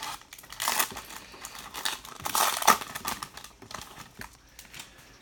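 Foil wrapper of a Bowman High Tek baseball card pack being torn open and crinkled. Sharp crinkling bursts come about a second in and again, loudest, between two and three seconds in, then die away.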